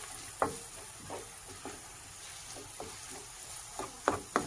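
Wooden spoon stirring onions, peppers and tomato paste in a non-stick frying pan, scraping and knocking against the pan every so often over a faint sizzle of frying. The two loudest knocks come close together near the end.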